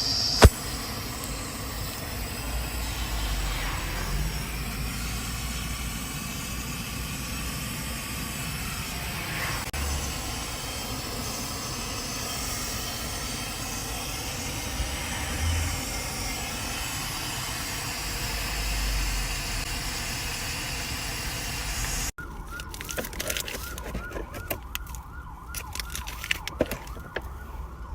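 An emergency-vehicle siren over steady traffic rumble. About two-thirds of the way through it cuts off abruptly, giving way to a quieter stretch with a steady high tone and scattered clicks.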